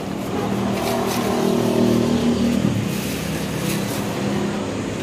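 A motor vehicle engine running, its pitch wavering and then fading a little under three seconds in, over steady background noise.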